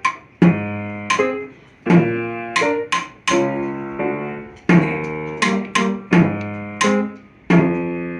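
Instrumental music: a series of sharply attacked chords, each ringing and then fading before the next, in a fairly even rhythm.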